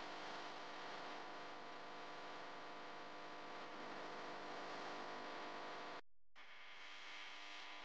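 Steady low hum and hiss recorded inside a slowly moving car, with no engine or traffic sound standing out. The sound cuts out completely for a moment about six seconds in.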